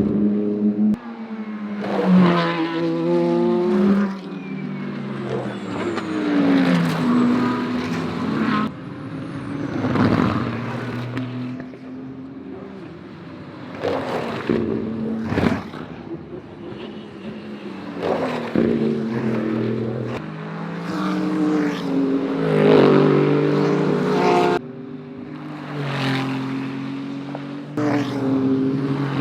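A series of GT3 race cars passing one after another at racing speed, each engine note rising as it approaches and dropping as it goes by, with pitch steps from gear changes.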